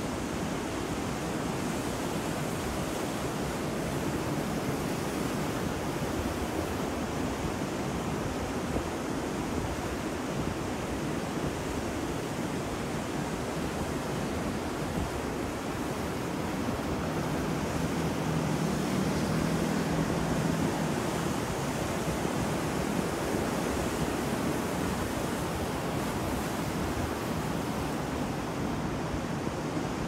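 Rough sea surf breaking and washing onto a beach, a continuous rushing wash that swells a little louder past the middle.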